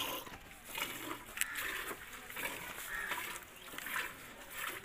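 A cow being milked by hand: short squirts of milk hitting a steel bucket, in a steady rhythm of about two to three a second.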